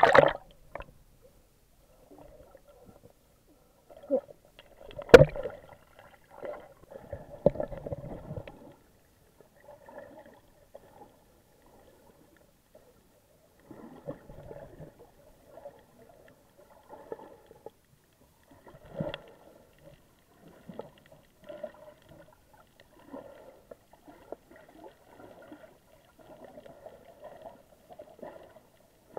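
Muffled underwater sound picked up through an action camera's waterproof housing: a loud splash right at the start as it goes under, a sharp knock about five seconds in, then intermittent gurgling and sloshing of water.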